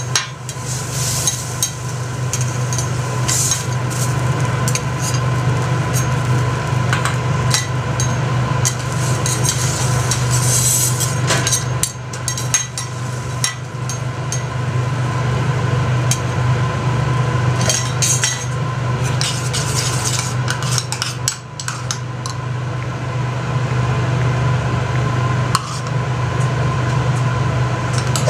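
Metal spatulas scraping, tapping and clinking on a teppanyaki steel griddle, with bursts of sizzling, over a steady low hum.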